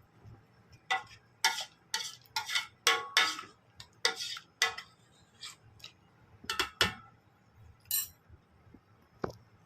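Kitchen utensil knocking, clinking and scraping against a cooking pot of herbal decoction, about a dozen irregular knocks in quick succession, then two more near the end.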